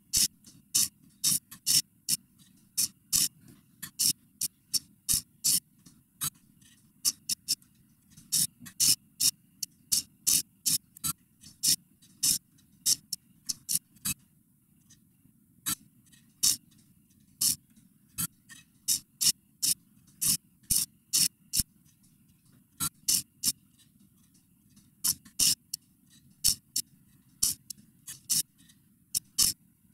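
Homemade servo-driven CNC pen machine dotting paper: a run of sharp clicks, roughly two a second and slightly irregular, as the hobby servos jab the pen down and move it, with a few short pauses. A faint steady low hum lies underneath.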